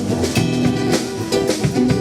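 A band playing a song: guitar over a drum kit keeping a steady beat.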